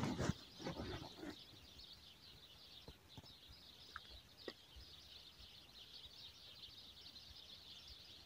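Faint, continuous chirping of small birds, with a few soft rustles in the first second or so.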